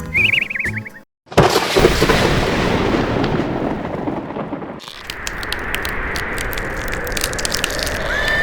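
A short warbling tone, then after a brief silence a sudden loud rumbling boom that dies away over about three seconds. It is followed by a steady hiss speckled with crackling clicks, like thunder followed by rain.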